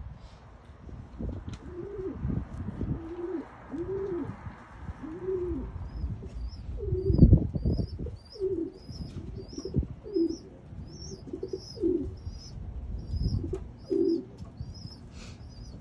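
Pigeons cooing in short repeated low phrases, with a small bird chirping rapidly over them, about two chirps a second. A loud low thump about seven seconds in.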